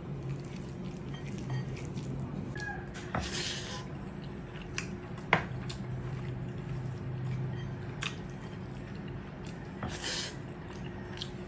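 Close-up chewing and eating sounds: scattered wet mouth clicks, one sharp click about five seconds in, and two short crunchy bursts about three seconds and ten seconds in, over a steady low hum.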